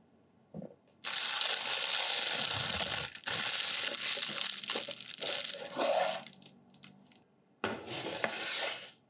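Thin plastic piping bag full of macaron batter crinkling and crackling as it is handled and twisted shut, for about five seconds. About a second and a half later, an aluminium baking tray slides across a wooden countertop with a brief scraping hiss.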